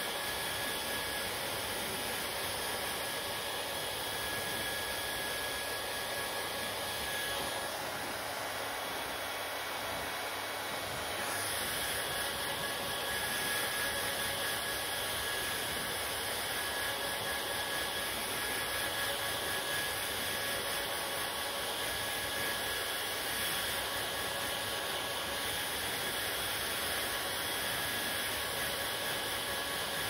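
Handheld hair dryer running continuously, a steady rush of blown air with a faint high whine from its motor; it shifts a little and gets slightly louder about a third of the way through as it is moved through the hair.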